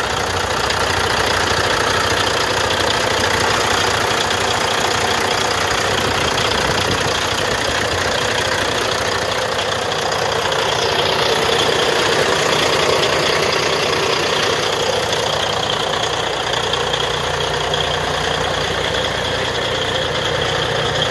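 A 2005 Volvo VN heavy truck's diesel engine idling steadily with the hood open.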